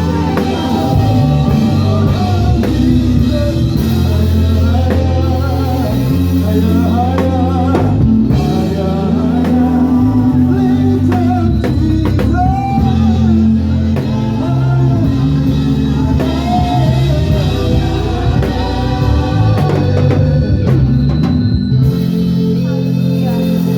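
Gospel praise and worship band playing, with heavy held bass notes that change every second or two, drum kit, and a wavering singing melody on top.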